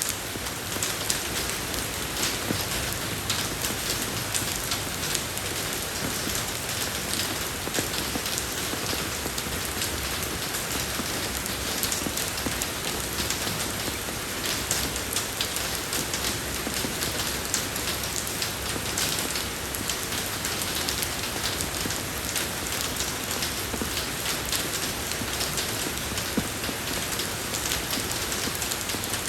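Steady rain falling on a road, a continuous hiss with many individual drop splashes.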